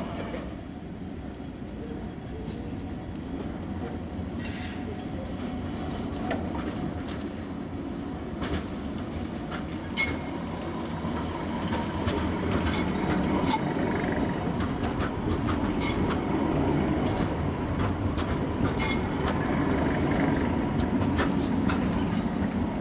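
Škoda 15T ForCity low-floor tram running past at close range, its steady running noise growing louder in the second half, with a few sharp clicks from the wheels and track.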